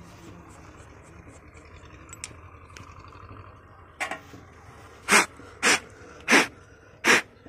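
A run of short, sharp hissing puffs, about one a second, starting about four seconds in after a few faint clicks. Pressure is escaping at a leaking fitting on a diesel engine's fuel injection pump.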